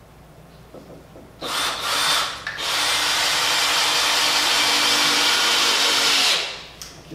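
Cordless drill running into the wooden frame of an Adirondack chair. A short burst comes about one and a half seconds in, then a steady run of about four seconds that stops near the end.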